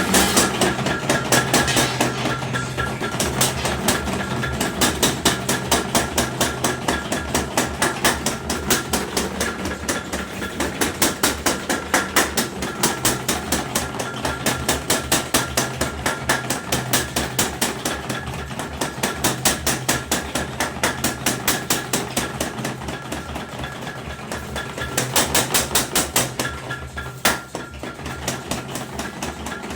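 Homemade mechanical power hammer pounding metal at a fast, even rhythm of several blows a second, over the steady hum of its drive motor.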